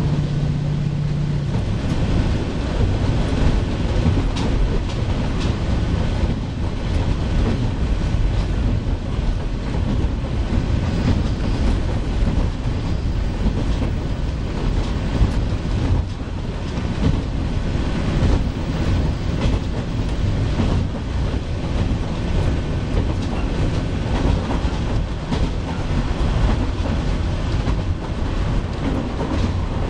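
Running sound inside a JR Shikoku KiHa 40 series diesel railcar on the move: the diesel engine and running gear drone steadily while the wheels click over rail joints. A low steady hum in the mix stops about a second and a half in.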